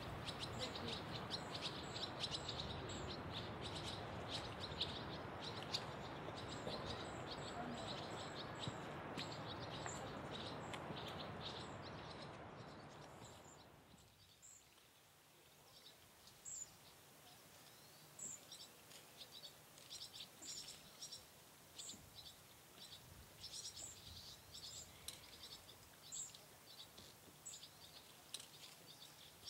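Small birds chirping in many short, quick calls over a steady rushing background noise, which drops away suddenly about halfway through, leaving the chirps over a quiet background.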